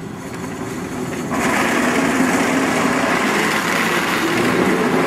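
Vintage Moscow tram passing close by, giving a loud, steady mechanical rattle that starts suddenly about a second in and cuts off sharply near the end.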